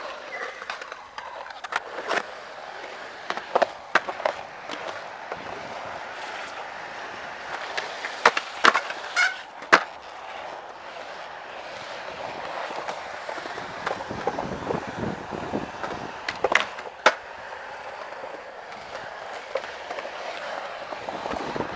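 Skateboard wheels rolling steadily over smooth concrete, broken by sharp clacks of the board popping and landing. The clacks come singly at first, then four or five in quick succession a little before the middle, then two more about three-quarters of the way through.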